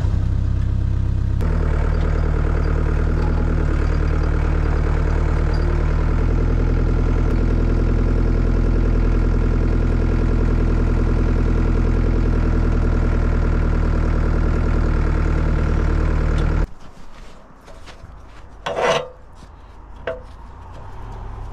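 An engine running steadily that stops abruptly about 17 seconds in, followed by quieter background and one short bump or clatter near the end.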